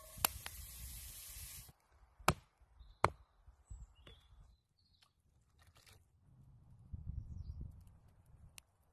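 Chopped meat sizzling as it drops into a hot cast-iron pot over a wood fire. A couple of sharp knocks follow, then faint bird chirps and a low rumble near the end.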